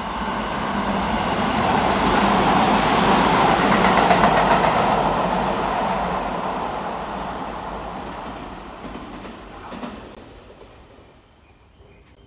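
A Tobu 20400-series electric commuter train running along the platform past the microphone. Its rumble and wheel noise build to their loudest about four seconds in, then fade away, with a short sharp click near the end.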